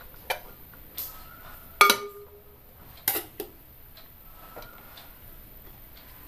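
A metal spoon clinking against a steel vessel and a pot as cooked rice is spooned out: five sharp clinks. The loudest, about two seconds in, rings briefly.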